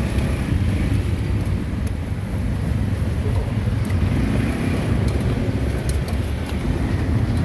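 Steady low rumble of street traffic, with a few light clicks over it.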